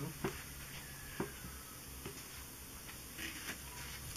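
A few light, sharp clicks about a second apart, the loudest near the start, as hands work a raw chicken on a wooden cutting board, over a faint steady low hum.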